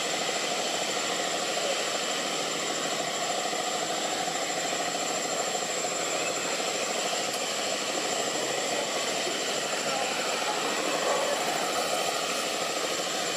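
Steady background noise with a constant high-pitched whine and no distinct events.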